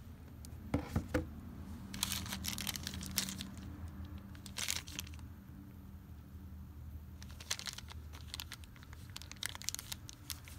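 Thin plastic bag crinkling in the hand in irregular short bursts as it is handled, with a set of dice inside.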